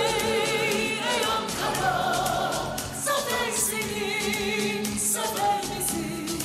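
Music: a song with several voices singing together in chorus, with vibrato, over percussion.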